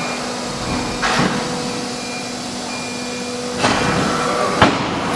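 CNC router machine running with a steady hum, broken by two short whooshing swishes and a sharp click near the end.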